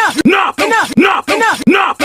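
A shouted 'Enough!' sound-effect clip looped back to back, the same yell repeating about every 0.6 seconds, about three times here.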